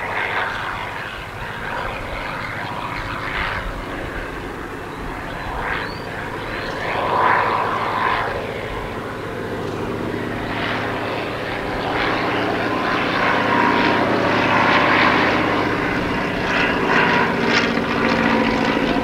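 A First World War-era biplane flying overhead, its piston engine and propeller droning steadily, growing louder in the second half as it comes closer.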